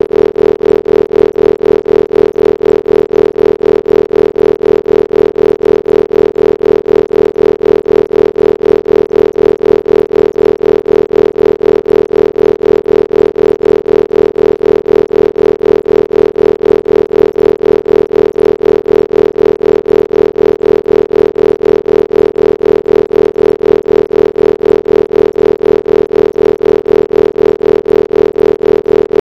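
Isochronic brainwave-entrainment tones: a steady electronic synthesizer drone of several held pitches, loudest in the low-mid range, pulsing on and off evenly several times a second without change.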